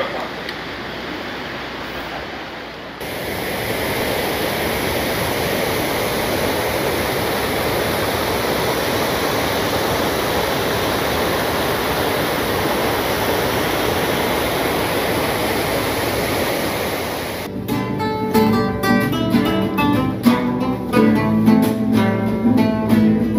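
Mountain stream rushing over rocks and small waterfalls, a steady even noise, which cuts about seventeen seconds in to two acoustic guitars played live together, plucked and strummed.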